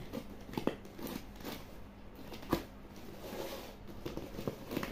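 Scissors cutting through the packing tape and paper label of a cardboard parcel: irregular snips and crackles of tape and cardboard, the sharpest click about two and a half seconds in.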